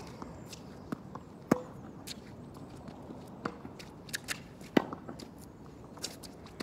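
Tennis ball struck by rackets during a rally: two sharp, loud hits about three seconds apart, the first about a second and a half in, with lighter ticks of bounces and footsteps on the court between them.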